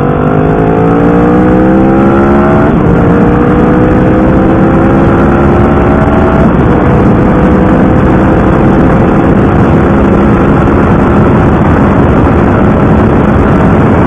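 Cruiser motorcycle engine under full-throttle acceleration, heard from the rider's seat. The pitch climbs steadily, drops at an upshift about two and a half seconds in and again about six and a half seconds in, then keeps rising slowly, all over steady wind rush.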